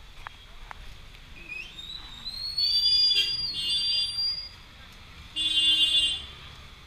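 Two loud, high-pitched squeals in street traffic. The first slides upward about two seconds in and holds for about two seconds. The second is shorter and comes near the end.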